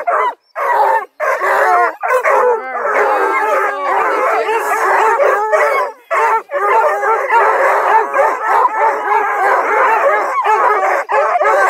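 A pack of young coonhounds (redbones, blueticks and black-and-tans) baying and howling together, many overlapping voices, with a few short breaks near the start and around six seconds in.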